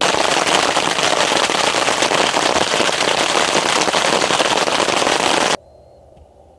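Loud, dense, steady crackling noise, like rain pelting a surface, that cuts off suddenly about five and a half seconds in.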